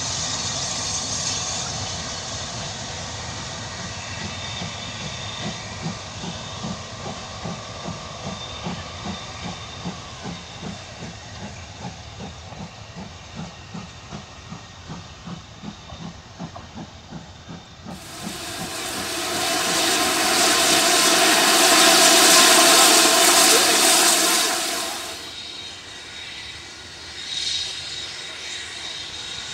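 Train hauled by the BR Standard Class 7 steam locomotive 70000 Britannia running past, its coach wheels clicking rhythmically over rail joints about twice a second. About eighteen seconds in, a loud steady hiss of steam starts abruptly, lasts about seven seconds and fades away.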